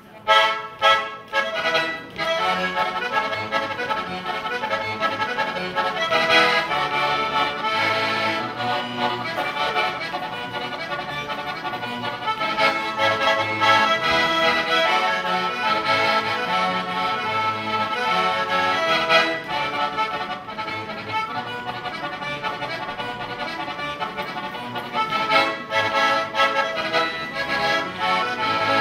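Solo button accordion playing a traditional folk tune, continuously.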